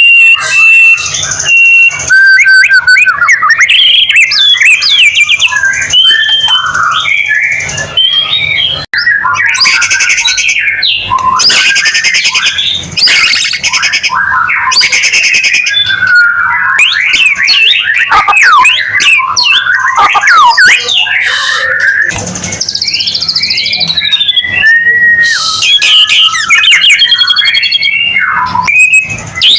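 White-rumped shama (murai batu) singing loudly and without pause, a varied stream of clear whistles, quick up-and-down glides and trills. Harsh rasping passages come before the middle and again near the end.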